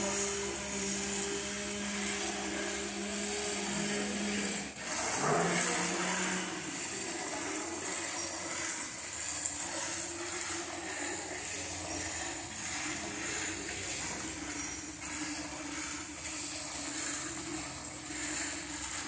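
A motor runs with a steady hum. About five seconds in it dips briefly, then its pitch slides back up and settles a little differently.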